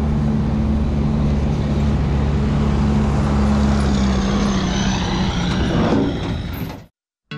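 Bicycle rolling along a cobblestone street: a steady rumble and hum from the tyres on the paving stones, cutting off suddenly near the end.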